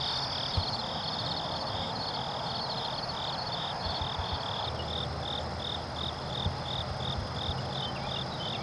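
Insects chirping in an even rhythm, about two high-pitched chirps a second, over a steady high hum.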